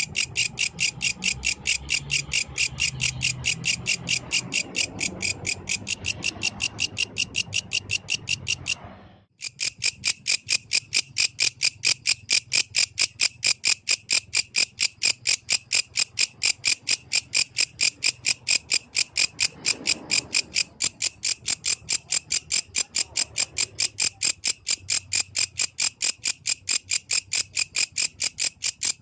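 Yellow grasshopper calling: a fast, even run of high-pitched chirps, several a second, broken by a brief gap a little after nine seconds in.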